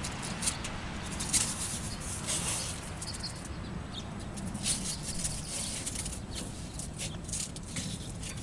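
Nylon Velcro straps being pulled through and pressed down: a series of short, scratchy rips and rustles, over a low steady hum.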